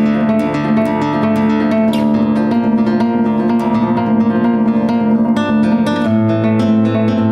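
Solo classical guitar playing: quick plucked notes ringing over sustained lower notes, with a change to a new chord and bass note about six seconds in.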